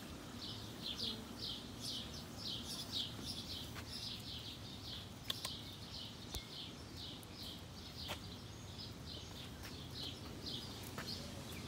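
A bird chirping over and over, a steady run of short, high chirps about two to three a second, with a few faint clicks.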